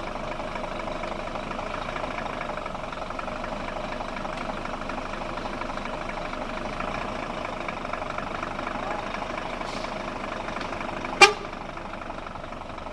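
Stranded truck's engine running steadily, a constant drone. Near the end a single sharp knock stands out above it.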